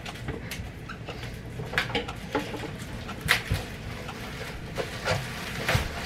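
Scattered knocks, clicks and rustles of groceries being handled and put away: cans and packages set down and moved on a wooden kitchen table.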